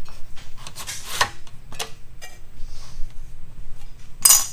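Plastic-cased EarthX lithium battery being slid into the sheet-metal straps of a battery bracket on a metal workbench: scraping and rubbing with a few knocks, the loudest a sharp metallic clack near the end.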